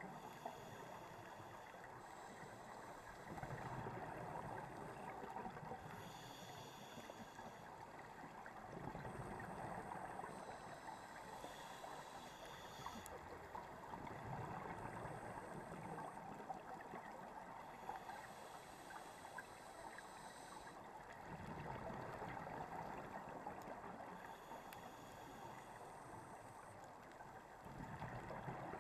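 Underwater sound of scuba regulator breathing: a bubbling rumble of exhaled air comes in every five to seven seconds, with fainter hissing between breaths.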